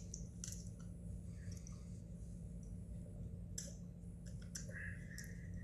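Scattered faint clicks and crackles of a plastic drink bottle being handled and its cap twisted, over a steady low hum.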